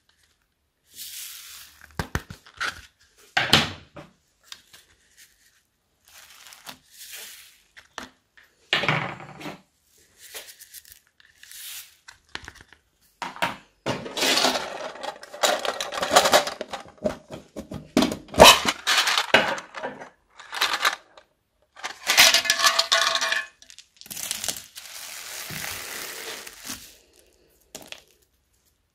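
Tiny foam beads poured from plastic containers onto a heap of slime in several separate bursts, a dry crackling hiss, with sharp clicks from the plastic containers being handled.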